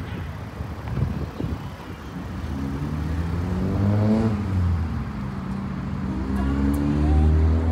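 Volkswagen T-Cross compact SUV pulling away. Its engine rises in pitch up to about four seconds in, eases back, then pulls harder again near the end.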